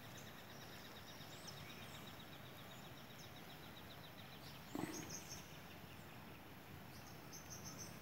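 Faint outdoor morning ambience with small birds chirping and a high, rapid, even ticking call that stops about halfway through. A soft thump comes just before the middle.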